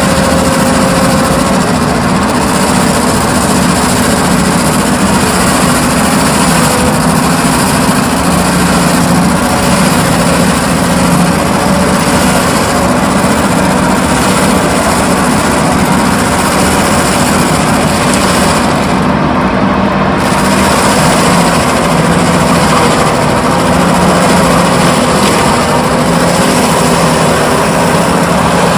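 Excavator-driven Enviro Mulcher attachment running, a loud, steady machine din with a slightly wavering hum.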